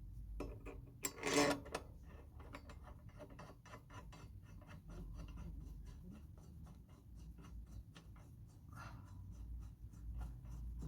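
A socket ratchet clicking in quick, even strokes, about five or six clicks a second, as the mower blade's bolt is run down before torquing, with a louder clatter a little over a second in.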